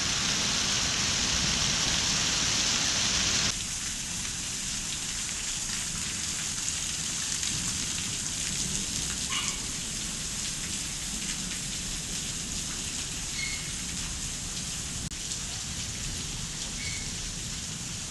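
Hailstorm: hail and rain pelting down in a dense, steady hiss, which drops abruptly to a softer level about three and a half seconds in.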